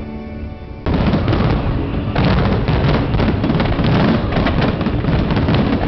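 Fireworks display: a dense, continuous barrage of bursts and crackling that starts suddenly about a second in and thickens about two seconds in.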